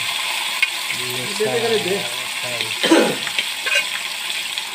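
Marinated fish pieces shallow-frying in hot oil in a kadai, a steady sizzle, with a short knock about three seconds in.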